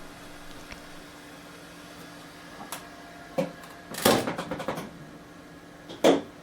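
Flashforge Adventurer 4 3D printer humming steadily, its fans running while the hot end is heated, with a few sharp clicks and a short rattle of handling about four seconds in.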